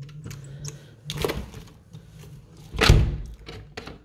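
uPVC window being worked by its handle: clicks and rattles from the handle and sash, a knock about a second in, and the sash shutting into the frame with a heavy thunk about three seconds in.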